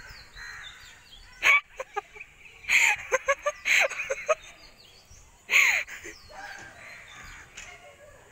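Crows cawing in a series of harsh calls. There is a loud caw about a second and a half in, a quick run of shorter caws around three to four seconds, and another loud caw about five and a half seconds in.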